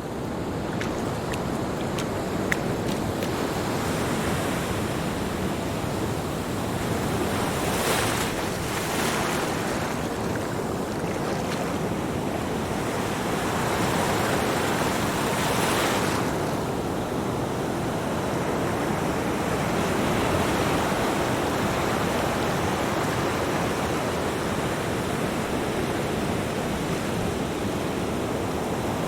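Ocean surf: a continuous rush of waves breaking and washing up a shore, with two bigger waves crashing louder about eight and fifteen seconds in.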